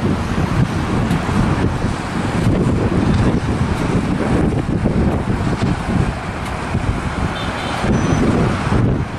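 An Airbus A350's Rolls-Royce Trent XWB jet engines at takeoff thrust as the airliner lifts off and climbs, a steady noise heaviest in the low end, with wind buffeting the microphone.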